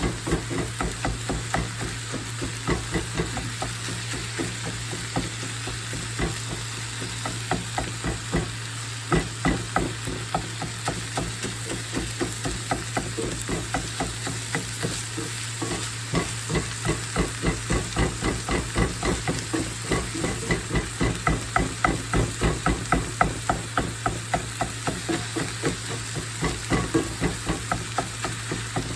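A utensil stirring food in a pan on the stove in quick, repeated scraping strokes, about two to three a second, with some sizzling, over a steady low hum.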